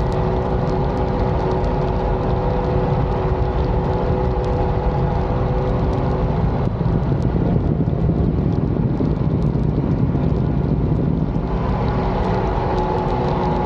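Mini jet boat's supercharged engine running at speed, a steady engine drone over the rush of water and wind. About halfway through the engine note is lost in the water and wind noise, and it comes back slightly lower near the end as the boat carves a turn.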